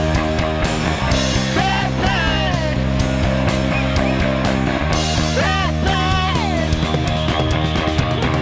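Rock band playing an instrumental passage, with drums keeping a steady beat under sustained bass and guitar chords. Short high sliding notes bend up and down over the chords.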